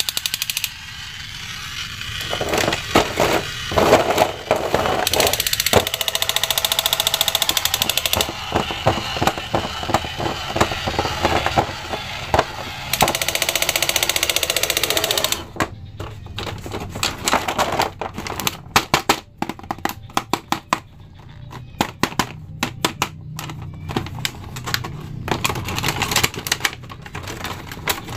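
Hard plastic action figures and clear plastic packaging being handled: crinkling rustles and a dense run of sharp plastic clicks and taps, which come as separate clicks in the second half.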